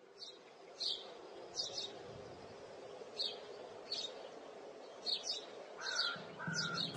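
Birds chirping: short, high chirps about once a second over a faint steady background ambience. Guitar music starts to come in near the end.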